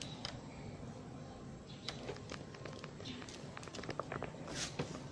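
Faint background noise with scattered light clicks and taps, the sharpest a little before the end.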